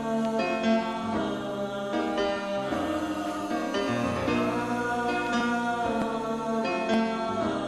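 Instrumental passage of a pop song: held chords that change every second or so, with no lead vocal.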